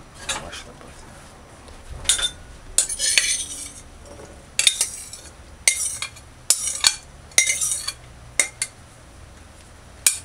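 A spoon clinking and scraping against a glass bowl in repeated short strokes as cooked butter beans are scooped out into a dish.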